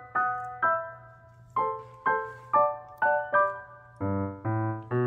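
Background piano music: single notes struck one after another at a gentle pace, each fading out, with lower notes joining about four seconds in.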